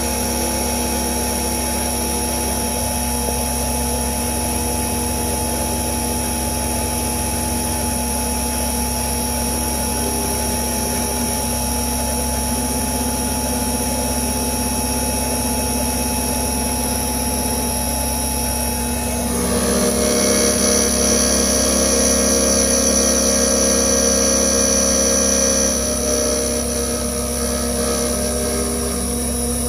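Clarke CNC milling machine running, its end mill cutting a connecting rod under flood coolant: a steady mechanical whine whose tones shift in steps as the cut moves, growing louder and brighter for about six seconds two-thirds of the way through.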